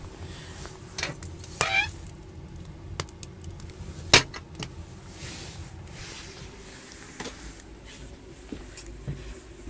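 A few scattered sharp knocks and clicks, the loudest about four seconds in, with a short scraping squeak early on the second second.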